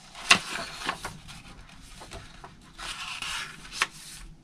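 Stiff paper pages of a handmade journal being turned by hand: a sharp flap about a quarter of a second in with rustling after it, a longer sliding rustle near three seconds, and another sharp flap just before the end.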